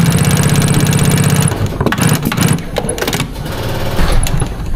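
Industrial sewing machine stitching fast for about a second and a half, then stopping. Irregular clicks and knocks of the machine and fabric handling follow.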